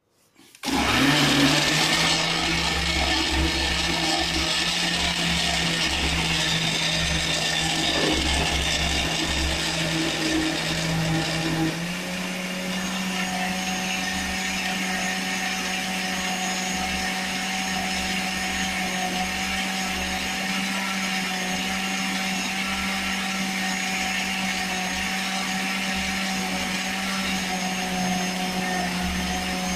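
Happymixx 950-watt blender motor switching on and running hard, chopping beetroot chunks in its jar. About twelve seconds in it gets a little quieter, smoother and slightly higher in pitch as the beetroot is broken down to a smooth purée.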